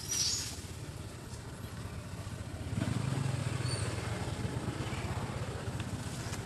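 Low engine rumble of a motor vehicle, growing louder about three seconds in and holding, with a brief high squeak at the very start.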